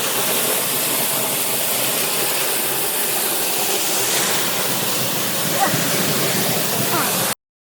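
Waterfall heard up close: a steady, dense rush of falling water that cuts off suddenly near the end.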